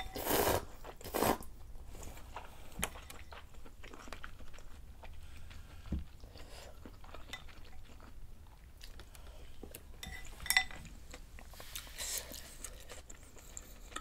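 Close-up eating sounds: two loud slurps of clear noodles from a bowl of soup at the start, then soft chewing and small clicks of chopsticks and spoon against the bowl, with one sharp clink about ten seconds in.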